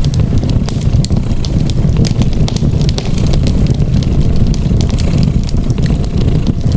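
Cat purring steadily and low, mixed with a fireplace's wood fire crackling in scattered sharp pops throughout.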